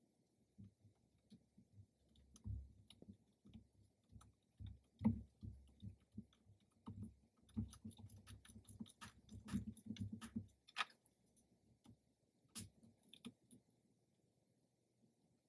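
Faint clicks and small knocks of hand work on a boat's fibreglass center console as a curtain cover is fitted with its small screws, with a quick run of clicks about eight to ten seconds in.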